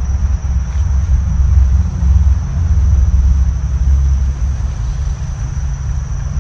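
Low rumble of traffic crossing the road bridge overhead, swelling through the middle and easing off near the end, over a thin steady high hum of insects.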